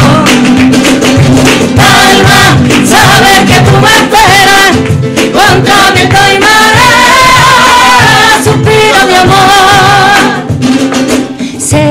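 Flamenco-style song performed live by a vocal group: sung voices in long, wavering notes over a steady low beat, thinning out near the end.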